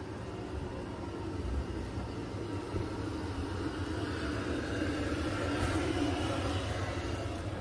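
A vehicle passing amid steady street noise, its rumble growing louder from about halfway through and easing off near the end.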